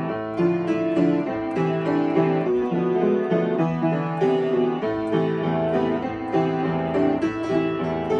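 Solo piano being played: a melody over chords, notes struck in a steady, quick rhythm without a break.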